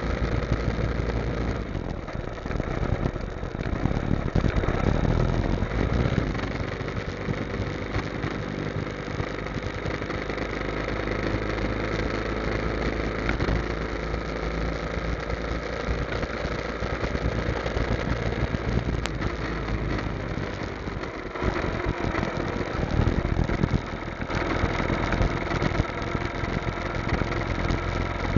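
Motorcycle engine running while riding, with wind and road noise on an onboard camera's microphone. The engine gets louder for a couple of seconds near the start and again about three-quarters of the way through.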